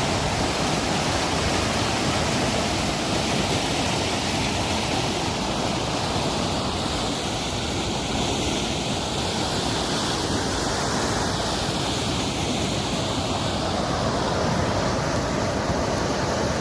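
Steady rushing of flowing water, an even, unbroken roar with no separate events.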